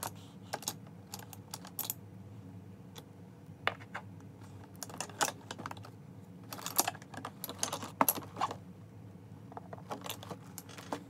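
Light, irregular clicking and clinking of small hard objects being handled, in scattered clusters, over a low steady hum.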